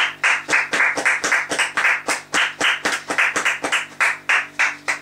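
Rhythmic hand clapping, about three to four claps a second, over faint background music with held notes.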